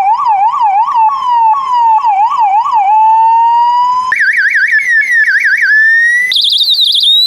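Electronic ambulance siren alternating a quick up-and-down warble with slow single sweeps in pitch. About four seconds in, the whole sound jumps abruptly higher in pitch, and it jumps higher again near the end: the same siren pitched up step by step.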